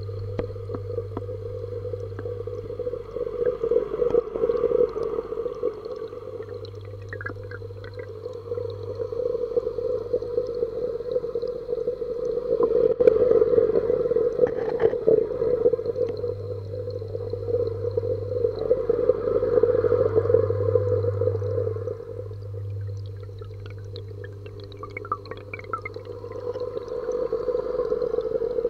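Muffled underwater sound in a garden pond: a steady hum with bubbling and crackling from an aerator's rising bubble stream, swelling and fading in loudness. A lower hum comes and goes.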